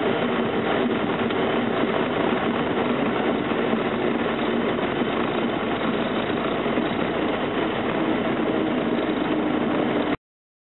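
Cessna 172M's four-cylinder Lycoming engine and propeller at idle power during the landing rollout, heard from inside the cabin as a steady drone. It cuts off suddenly near the end.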